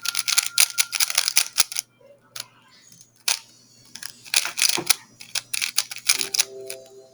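Speedcubing 3x3 Rubik's cube being turned fast in the hands: bursts of rapid plastic clicking and clacking. There is a lull of about a second after the first two seconds, then another run of turns.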